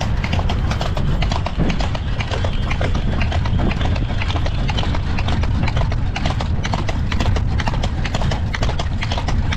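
Hooves of a horse pulling a carriage clip-clopping in a quick, even rhythm, over a steady low rumble.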